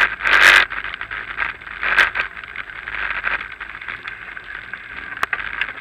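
Riding noise of a bicycle on a brick-paved path, heard through an action camera's microphone: steady rolling and rattling with a few sharp clicks, and two louder bursts, one just after the start and one about two seconds in.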